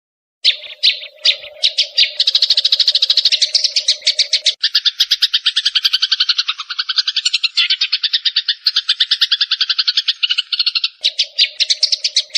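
Sparrows chirping in a fast, unbroken chatter of short notes, several a second, starting about half a second in. A low steady drone runs underneath at first, stops about four and a half seconds in and comes back near the end.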